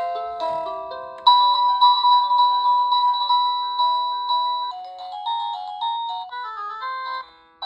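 Plug-in wireless doorbell receiver playing its electronic chime tunes one after another. A louder tune with long held notes starts about a second in, then turns into a quicker run of short notes. It stops briefly near the end, and the next tune begins.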